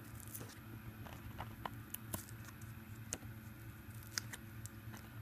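A CR2032 lithium coin cell being torn out of its paper-backed blister pack: scattered, irregular small crackles and clicks of paper and plastic.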